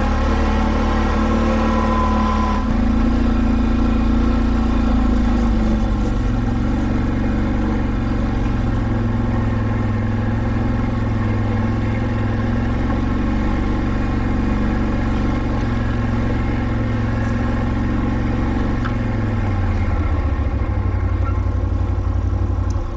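Can-Am Outlander 570 ATV's V-twin engine running steadily at trail-riding speed. Its pitch rises slightly a few seconds in and dips near the end.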